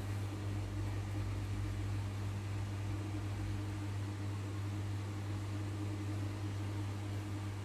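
Steady low hum with an even hiss over it: constant background noise, with no drawing or other events standing out.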